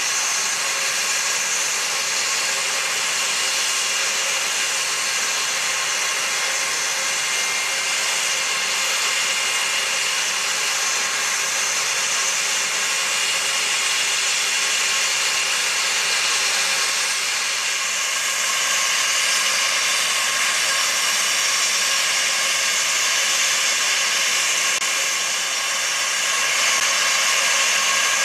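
Turbofan engines of an Airbus A320-family airliner running at idle as it taxis past close by: a steady high whine over a strong hiss, growing a little louder near the end.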